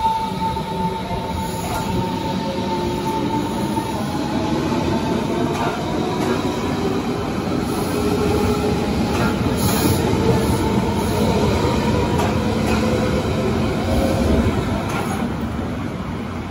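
Berlin S-Bahn electric train pulling away and running past: a steady high electric motor whine for the first few seconds, then the continuous rolling rumble of wheels on the rails with some squeal, easing off near the end as the train recedes.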